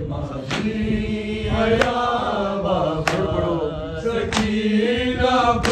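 Men's voices chanting a Shia noha lament in long, drawn-out notes. Five evenly spaced sharp strikes about 1.3 seconds apart keep the beat, the rhythm of hands striking chests in matam.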